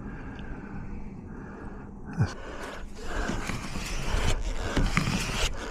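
Wind rumbling on the microphone, with a sharp knock about two seconds in and rougher rustling noise getting louder in the second half.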